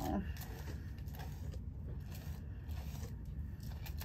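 Hairbrush being pulled through a wig's long curly hair: a few faint brushing rustles over a low steady hum.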